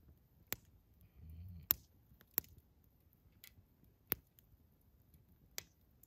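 Campfire wood crackling: about six sharp, separate pops at irregular gaps of roughly a second, the loudest a little under two seconds in.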